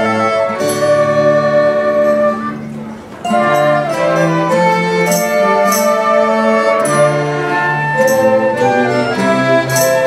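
Student ensemble of violins, cello, flutes, recorders and classical guitars playing a piece together under a conductor. The music drops away briefly between about two and three seconds in, then comes back in together.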